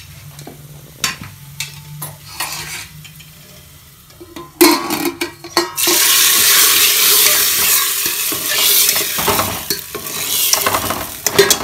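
Hot ghee tadka of browned garlic and asafoetida poured into cooked saag in an aluminium pressure cooker. It bursts into a loud hissing sizzle about four and a half seconds in as the hot ghee hits the wet greens. A few spoon and pan clicks come before it, and stirring with a spatula runs through it.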